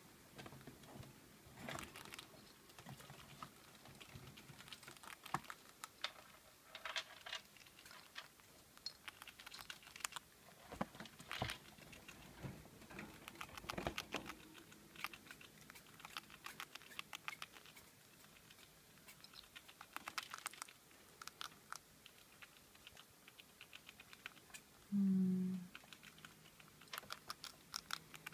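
Pet rats crunching dry pellet food: an irregular run of small, crisp clicks. A short low hum sounds about three-quarters of the way through.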